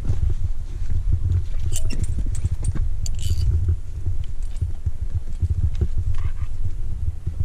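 Steady low rumbling on the microphone, with scattered clicks and clinks from a climber moving over rock; the clicks are busiest about two to three seconds in.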